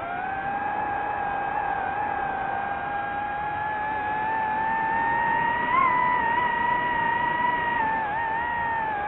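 DJI FPV drone's motors and propellers whining in flight. The pitch rises slowly toward the middle, jumps briefly about six seconds in, then dips near the end as the throttle changes.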